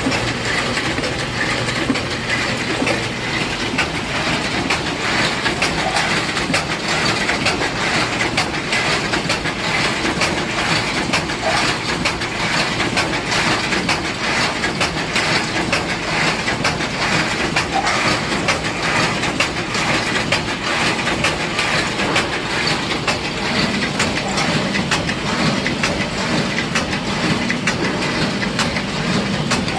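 Corrugated-box making machinery running steadily, a dense continuous rattling clatter of rapid mechanical clicks. A lower hum grows stronger after about twenty-three seconds.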